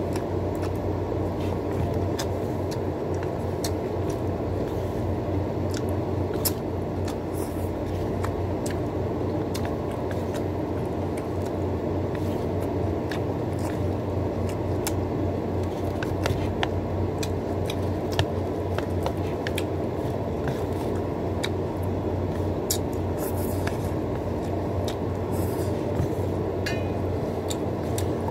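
A steady low hum with small scattered clicks and smacks of someone eating noodles with chopsticks.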